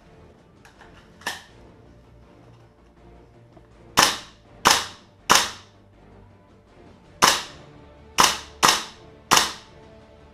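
Gas blowback airsoft rifle (WE HK416 open-bolt GBBR) firing seven single shots, three in quick succession about 4 s in and four more a couple of seconds later, each sharp crack ringing briefly in a small room. A fainter click comes about a second in.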